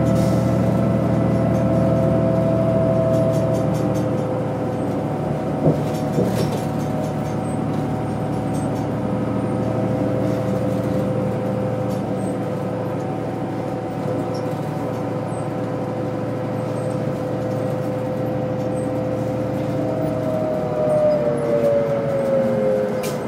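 Inside a city transit bus under way: the engine and drivetrain run with a steady whine over road and tyre noise, and the whine falls in pitch near the end. A couple of sharp knocks or rattles about six seconds in.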